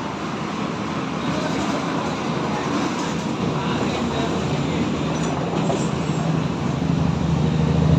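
Steady background noise of road traffic, with a vehicle engine's low rumble building louder toward the end.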